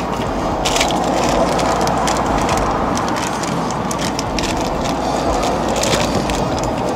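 Plastic bag crinkling in bursts of sharp crackles as a new outer tie rod end wrapped in it is handled, over a steady rushing background noise.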